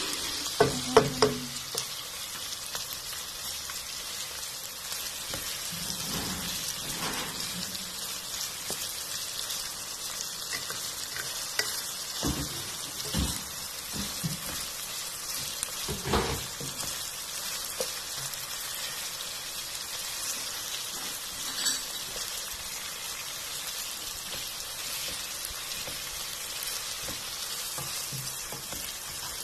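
Chicken pieces sautéing with ginger and onion in hot oil in a frying pan, a steady sizzle, with a few knocks and scrapes of a spatula stirring them near the start and again around the middle.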